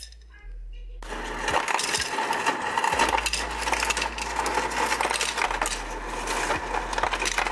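Ice cubes from a refrigerator-door ice dispenser clattering into a tall glass. The clatter starts about a second in and goes on as a continuous rattle of many small hard impacts as the glass fills.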